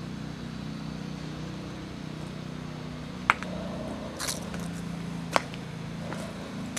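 Footsteps on dry leaves and twigs: a couple of sharp snaps and several short crunches from about three seconds in, over a steady low hum.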